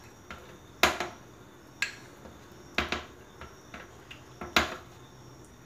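A spoon clinking and knocking against a small glass bowl held over a plastic blender jar while thick condensed milk is scraped out of the bowl. There are four sharp knocks about a second apart, with a few lighter taps between them.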